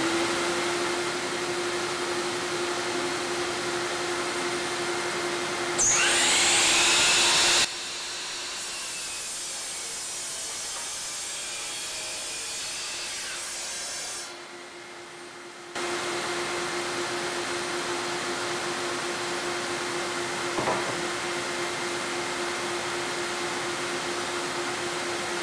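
A shop dust-collection vacuum runs with a steady hum. About six seconds in, a DeWalt miter saw spins up with a rising whine and cuts through a Jatoba (Brazilian cherry) board in under two seconds, the loudest sound here. A couple of light knocks follow later.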